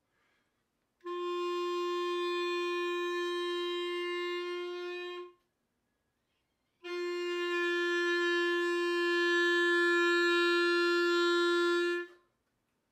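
A clarinet holds one long steady note twice, each about four to five seconds. On the first note the instrument is raised higher, pushing the teeth toward the reed tip and shutting the reed down, so the note thins and cuts off. On the second note the clarinet is brought back down, so the reed speaks again and the note fills out, growing louder.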